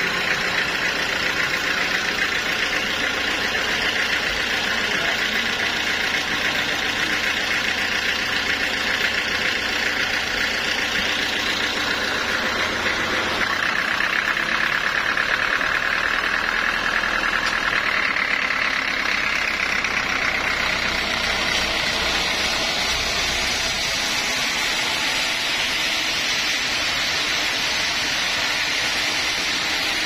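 The sawmill's belt-driven stationary engine running steadily at idle, an even mechanical drone with a fast firing rhythm and no sawing.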